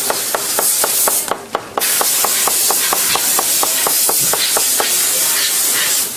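A loud, steady hiss like a spray of air, which stops for about half a second around a second and a half in, over a regular ticking of about four to five clicks a second.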